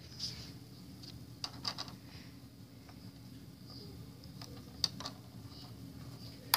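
Light plastic clicks and taps as the hinged hull panels of a LEGO Millennium Falcon model are handled and lifted open. The clicks are scattered: a small cluster between one and two seconds in, a sharp one near five seconds and the loudest near the end, all over a steady low hum.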